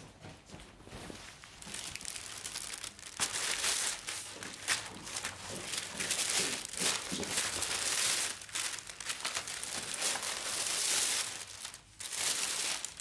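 Thin plastic carrier bag rustling and crinkling as takeout items are lifted out of it, with a short pause near the end.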